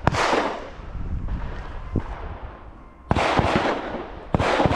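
Handgun shots on a firing line, several shooters firing irregularly: one shot right at the start, a fainter one about two seconds in, then quick strings of shots a little after three seconds and again past four seconds, each with a ringing echo.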